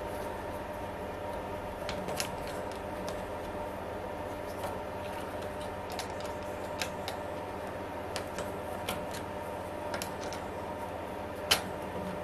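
Scattered light metallic clicks and scrapes of a small screwdriver picking at a gib adjustment screw whose head has broken off, in a milling machine's head casting. One sharper click comes near the end, over a steady background hum.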